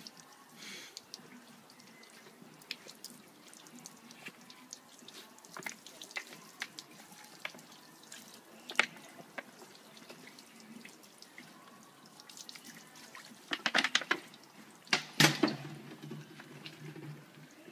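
Water poured from a plastic bottle splashing and dripping onto a car's painted body panels, with scattered drips and a burst of louder splashes near the end.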